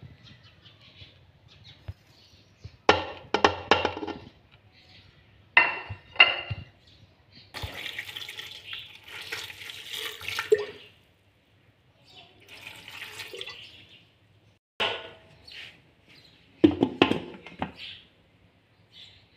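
Ingredients going into an aluminium pressure cooker: scattered clinks and clatters of utensils against the pot, a few seconds of liquid being poured in the middle, and a louder clatter of the metal lid being fitted near the end.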